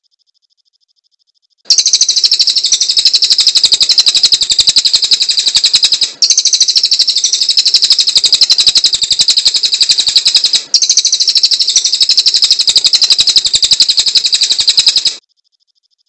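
Cililin songbird singing a rapid, even trill of sharp, high repeated notes. It comes in three long runs that start and stop abruptly, beginning about two seconds in, with brief breaks around six and eleven seconds.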